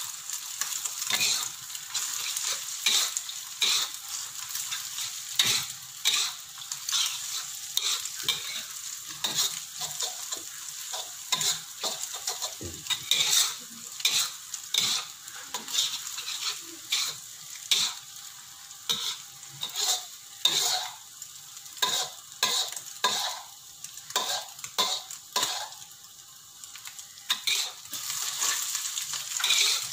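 A spatula scraping and clacking against a wok in repeated, irregular strokes, over a steady high sizzle of egg, sausage and mustard greens frying in hot oil.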